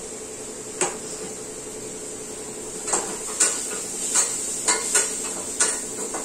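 Metal spoon knocking and clinking against a steel kadai while stirring a ridge-gourd stir-fry. There is a single knock under a second in, then clinks about twice a second from about three seconds in, over a steady high hiss.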